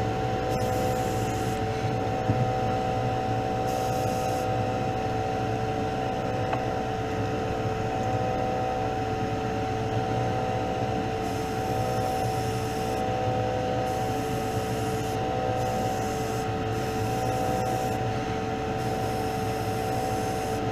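Spray booth exhaust fan running: a steady drone with a few held tones over a low hum, unchanging throughout.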